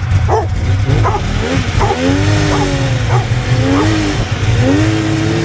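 Polaris XLT 600 three-cylinder two-stroke snowmobile engine running, its revs rising and falling three times as the throttle is blipped. A dog barks repeatedly through it.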